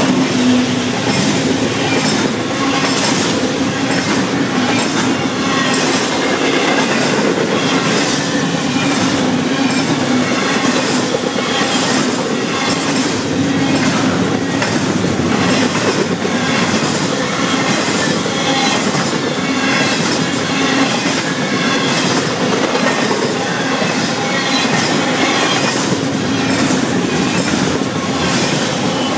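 Florida East Coast Railway double-stack container freight train rolling past: a steady rumble of wheels on rail with regular clacks from the wheels.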